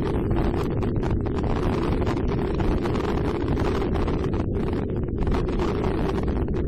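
Motorcycle engine running steadily on the move, mixed with wind buffeting the helmet-mounted microphone.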